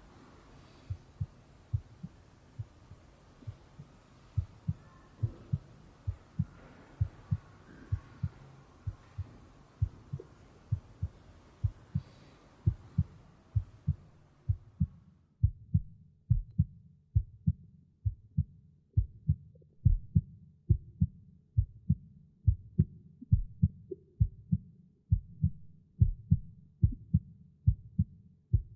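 Soft, low thumps repeating two to three times a second, often in pairs. About halfway through, the faint background hiss drops out suddenly and only the thumping remains, slightly louder.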